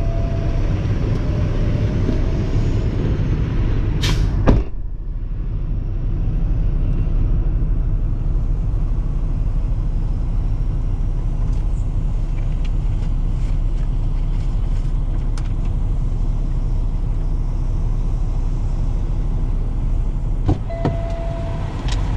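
Truck's diesel engine running steadily, heard from inside the cab. About four seconds in there is one loud bang, after which the outside noise drops, as a cab door shuts; a short beep sounds near the end.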